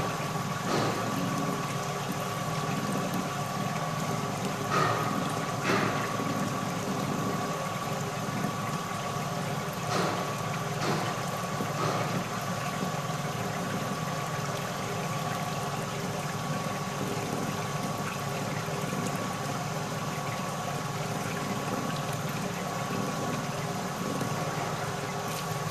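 Kason Vibroscreen vibratory screener running steadily with a constant machine hum and rattle while a dark slurry is poured onto its screen, with some liquid splashing. A few sharp knocks stand out in the first half.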